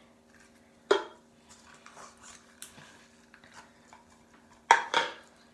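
Slime being worked by hand in a bowl: two short, loud squelches, about a second in and again near the end, over a faint steady hum.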